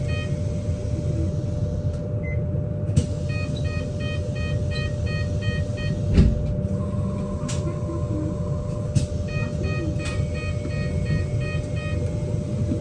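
BYD K8 electric bus running with a steady low rumble and a constant hum. A repeating electronic beep sounds about three times a second, stopping and starting again twice. A single thump comes a little after midway.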